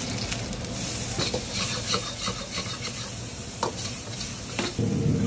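Chopped garlic and chili sizzling in hot oil in a wok, with a metal ladle stirring it and scraping or knocking against the wok now and then. Near the end a louder, deeper rushing sound comes in.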